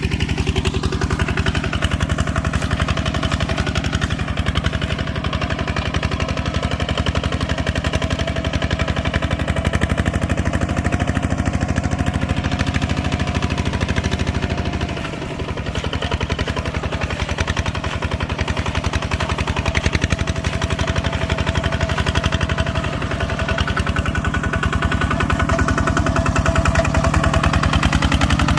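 Engine of rice-harvesting farm machinery running steadily with a rapid, even chugging; the level dips briefly about halfway through.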